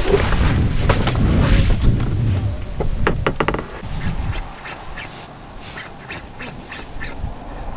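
Fabric and bags rustling and clicking as they are handled in an SUV's open boot, over a loud low rumble that eases after about two and a half seconds. A quick run of sharp clicks comes about three seconds in.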